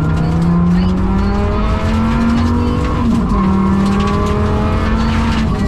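Rally car's engine at full throttle under load from inside the cabin, pitch climbing then dropping sharply twice as the dog-box gearbox is shifted up, about three seconds in and near the end. The engine is running with a bad misfire and down on power.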